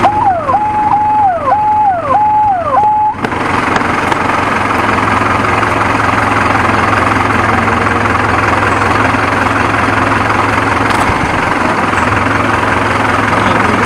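Tractor's diesel engine running steadily while the tractor drives slowly. For about the first three seconds a horn sounds a repeating tune over it: a held note that drops away, about five times in quick succession, then cuts off suddenly.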